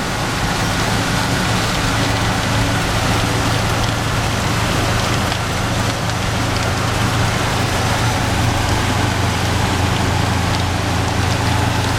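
1967 Volkswagen Westfalia camper's air-cooled flat-four engine droning steadily at highway speed, with rain and wet-road noise hissing over it.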